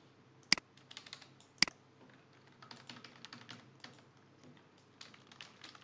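Typing on a computer keyboard: a run of light keystrokes, with two much louder, sharp clicks about a second apart near the start.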